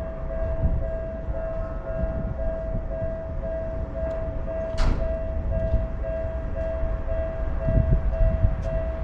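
Japanese railroad crossing alarm ringing, a single electronic tone repeating about twice a second, over the rumble of a passing train. There is a sharp clank about five seconds in and heavier thumps near the end.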